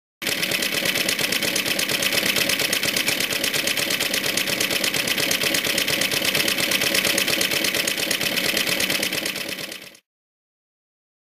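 Suffolk Colt motor mower's small two-stroke engine running steadily at a fast, even beat, which cuts off suddenly about ten seconds in.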